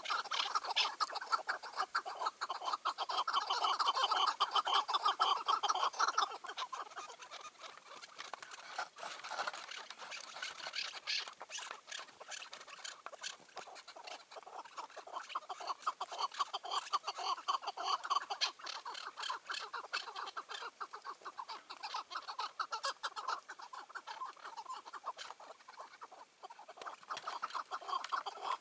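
Chukar partridge calling: a fast, unbroken run of repeated chuck notes, loudest in about the first six seconds.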